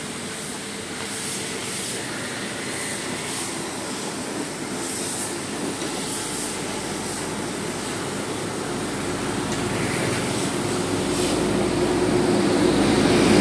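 Street traffic of passing motorbikes, with a heavy truck's engine drawing nearer and growing steadily louder toward the end.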